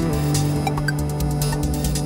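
Electronic background music: a held synthesizer note over a light, steady beat, changing to a new chord right at the start.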